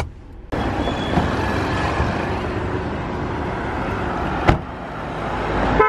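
City street traffic: cars passing on the road, one drawing closer and louder toward the end, with a single sharp knock about four and a half seconds in.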